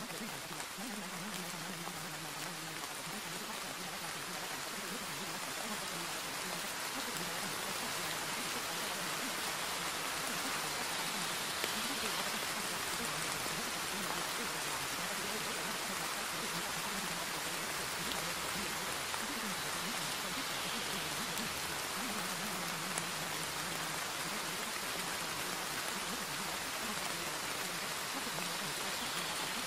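Steady rain sound used as a subliminal masking track, with a faint voice underneath it carrying the hidden affirmations.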